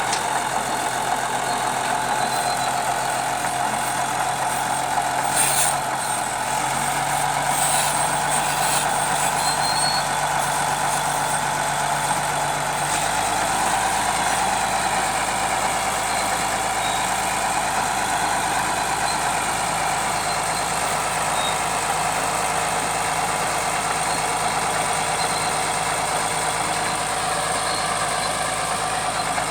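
Bulldozer's diesel engine running steadily, its engine speed stepping up about six seconds in and again around thirteen seconds. A few metallic knocks sound a few seconds in.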